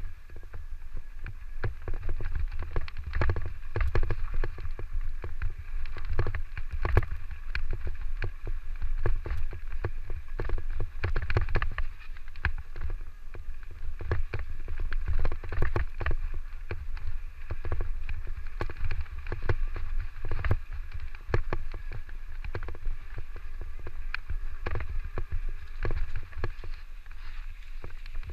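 Electric mountain bike riding a rough dirt trail: a steady low wind rumble on the microphone, with frequent rattles and knocks from the bike jolting over the ground.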